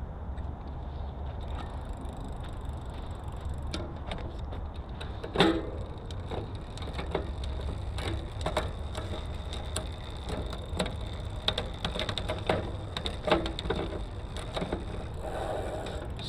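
Hands working on a bicycle: scattered clicks and knocks of tools and bike parts, with one louder knock about five seconds in, over a steady low background rumble.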